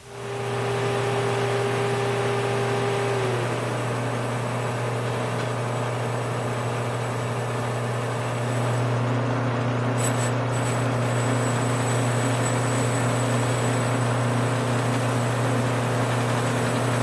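Drill press running a wire cup brush against the painted steel ammo can lid, scrubbing it down to bare metal: a steady motor hum under the brush's harsh hiss. A tone in the motor drops in pitch about three seconds in.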